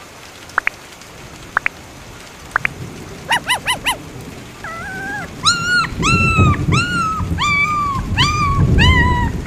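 Puppy whimpering over steady rain: a few short rising squeaks, a quick run of yips about three seconds in, then a string of high, drawn-out whines from about five seconds on, with a low rumble under the later whines.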